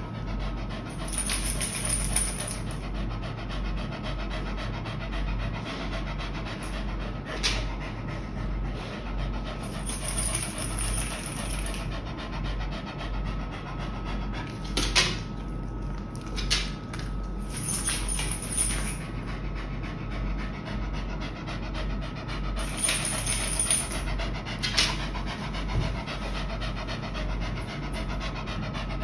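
A dog panting steadily. Four brief high-pitched sounds and a few sharp clicks are heard over the panting.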